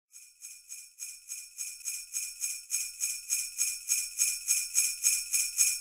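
Sleigh bells shaken in a steady rhythm, about three to four jingles a second, fading in and growing steadily louder.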